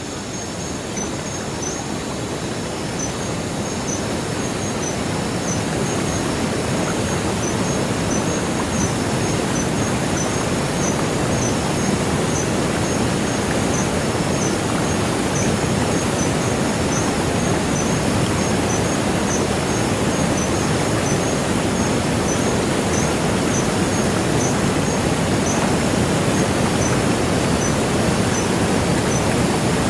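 Waterfall rushing, a steady loud roar of cascading water that swells over the first few seconds, with a faint high insect chirp repeating about twice a second above it.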